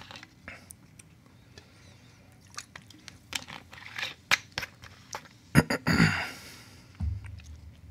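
Irregular small clicks, crackles and rustles of something being handled at a desk, with a louder rustling cluster about six seconds in.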